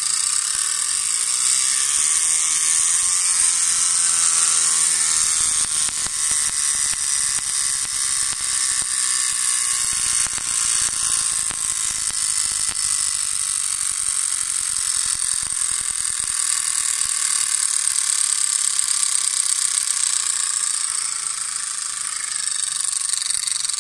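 Rear freehub of a 2019 Trek Fuel EX 5 full-suspension mountain bike ratcheting as the rear wheel freewheels. Its pawls click so fast that they run together into a steady, loud, high-pitched buzz: the prized loud hub sound the rider calls 'tunog maharlika'.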